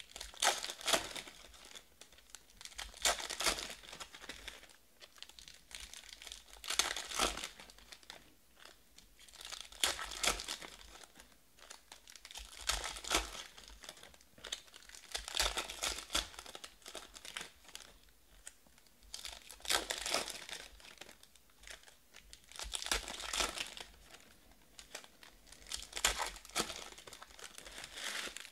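Foil trading-card pack wrappers crinkling and tearing as packs of Panini Status basketball cards are ripped open by hand, in bursts every few seconds.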